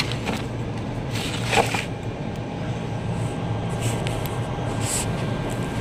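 Steady low background hum of running machinery, with a brief rustle about one and a half seconds in.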